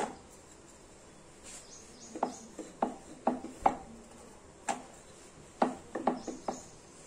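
Wooden rolling pin rolling out a sheet of dough on a round wooden board, with a string of irregular short wooden knocks and clacks as pin and board shift under the strokes. The knocks are sparse at first and come thick and fast from about two seconds in.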